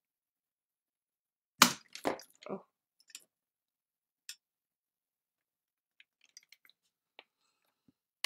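Three quick knocks in a row, the first the loudest, followed by scattered faint clicks and ticks and a sharper click at the end.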